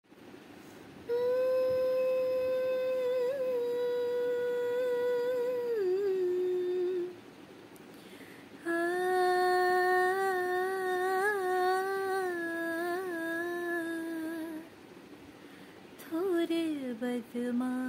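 A woman humming a melody unaccompanied in three long, held phrases with small ornaments, each dropping lower in pitch at its close; the third starts about sixteen seconds in and leads into the song.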